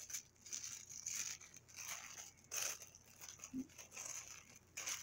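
Plastic toy wrapping crinkling and tearing by hand in short, irregular bursts as a packet is pulled open.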